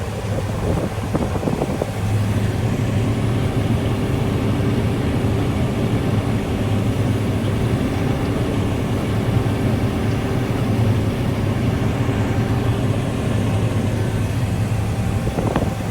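Combine harvester running steadily under load, a continuous low engine and machinery drone with a faint higher hum above it.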